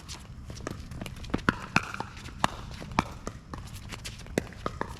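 Pickleball rally: paddles hitting the plastic ball back and forth, a series of sharp pops at irregular intervals, with lighter taps and steps in between.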